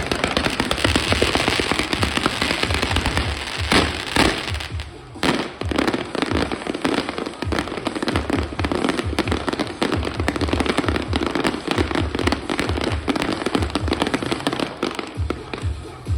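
Fireworks and firecrackers crackling densely, with a few sharper bangs, over music with a steady low beat.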